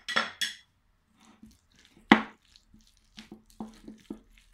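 Spatula mixing chopped boiled egg with mayonnaise in a plate: wet squishing with a run of knocks and scrapes of the spatula on the plate, the loudest about two seconds in.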